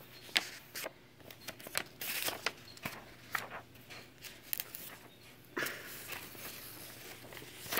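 Quiet rustling with scattered small clicks and taps, handling noise close to the microphone.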